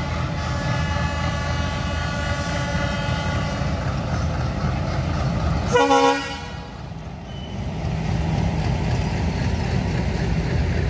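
Passenger train coaches rumbling past on the rails. A horn sounds steadily through the first four seconds or so, then gives a short, loud toot about six seconds in.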